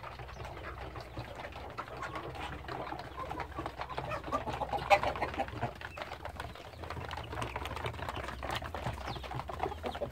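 A flock of chickens clucking and murmuring as they crowd the feed troughs, with scattered short taps. It is busiest and loudest about five seconds in.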